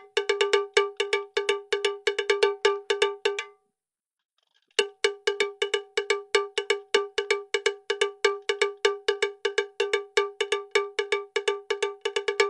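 A bright bell-like tone struck rapidly over and over at one unchanging pitch, about five strikes a second in an uneven rhythm, stopping for about a second a little after three seconds in and then carrying on; it is a percussion track laid over the video rather than the toys themselves.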